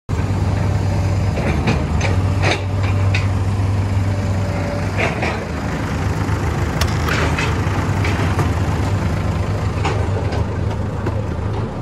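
Hidromek 102 S backhoe loader's diesel engine idling steadily, with several sharp clanks and knocks over it.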